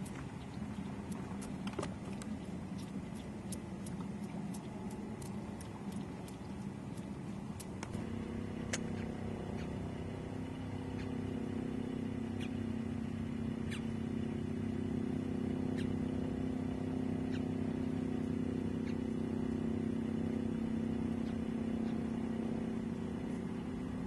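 Boat motor running steadily with a low hum that grows louder and smoother about eight seconds in, with scattered light clicks during the first part.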